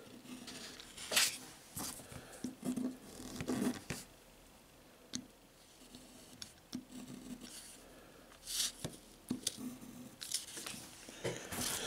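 Online calligraphy fountain pen's 1.1 mm steel nib scratching across paper as letters are written: short, irregular scratchy strokes with brief pauses between them.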